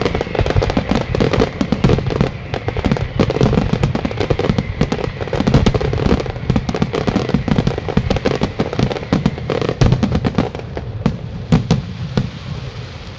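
Aerial fireworks shells and ground fountains going off in a rapid, continuous barrage of bangs and crackling. The barrage thins and fades over the last few seconds.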